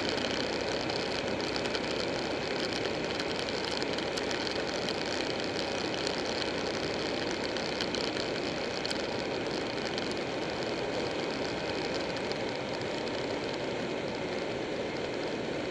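Buell 1125R motorcycle's V-twin engine running at road speed, with steady wind noise over the bike-mounted camera. The sound eases slightly near the end.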